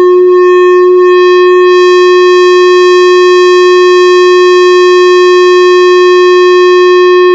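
Frosted quartz crystal singing bowl, its rim rubbed with a mallet, sounding one loud, steady ringing tone with higher overtones. The tone holds on unchanged after the mallet is lifted near the end.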